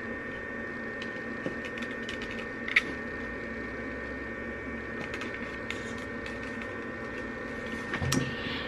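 Steady electrical hum with a few faint high tones from a running handheld RF skin-tightening wand, with soft rubbing and handling noise as it is moved over the face and neck, and a small click about three seconds in.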